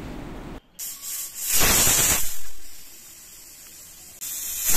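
Pressure cooker's weighted whistle valve venting steam: two loud hissing bursts, the first about a second in and lasting over a second, the second starting near the end, with a faint steady hiss between. The bursts are the sign that the cooker has come up to pressure.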